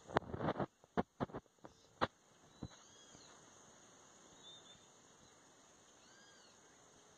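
A quick run of sharp splashes in the first two and a half seconds as a small dog thrashes in muddy river water, then a steady high insect drone with a few faint, short rising-and-falling cries.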